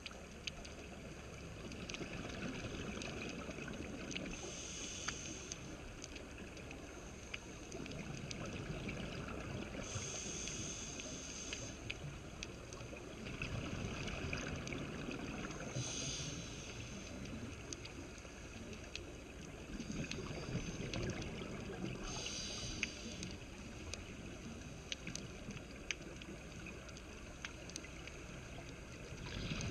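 Scuba breathing underwater through a regulator: a short hiss about every six seconds, with bubbly exhalations swelling between them over a low steady rumble and scattered faint clicks.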